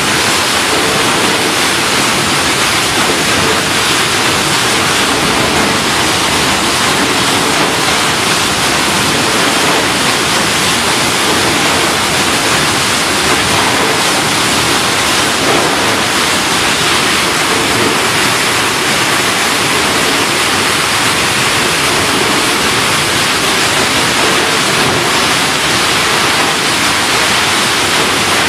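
Chili stem-cutting machine running: a steady, even rushing noise with no distinct rhythm or tone.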